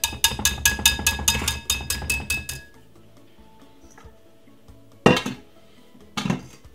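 Metal hand whisk clinking rapidly against a glass mixing bowl, about six ringing clinks a second for under three seconds, knocking cake batter off the wires; two short handling sounds follow near the end.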